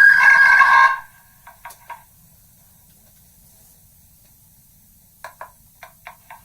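A megaphone plays back a voice recording that has been re-recorded through megaphones many times, worn down into a tinny, ringing tone that pulses several times a second. It cuts off about a second in. Faint short blips follow, then near silence, then a run of short blips near the end.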